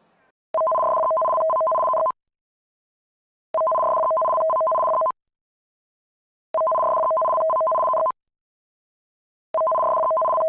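Electronic two-tone beep: two steady pitches sound together for about a second and a half, then stop, repeating every three seconds. Three full beeps sound, and a fourth starts near the end.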